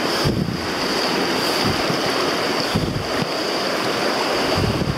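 Steady rush of a trout river's current flowing over rocks, close by, with a few brief low thumps of wind or movement on the microphone.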